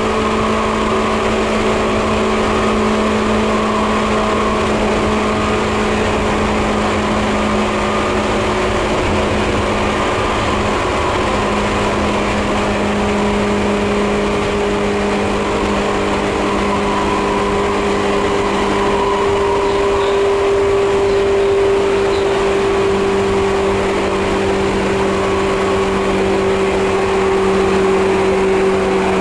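Interior running sound of a Seibu 2000 series field-chopper-controlled electric train, heard in the motor car: a steady hum from the traction motors and gearing over the rumble of wheels on rail, the hum's pitch drifting only slightly.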